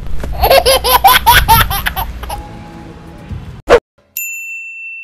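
A young man laughing in a quick run of ha-ha pulses for about two seconds. Then a short whoosh and a steady high electronic beep tone that holds on.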